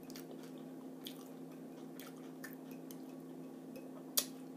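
Quiet wet chewing with small mouth clicks, and a fork working food on a plate, with one sharp clink of the fork about four seconds in. A steady low hum runs underneath.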